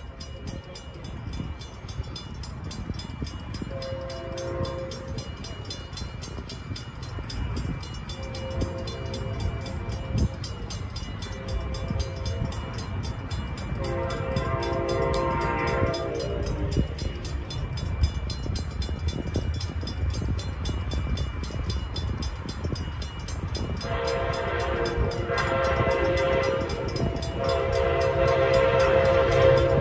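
Amtrak passenger train horn sounding a series of blasts as the train approaches: fainter ones at first, then louder, longer ones near the end. A low rumble of the train underneath grows steadily louder.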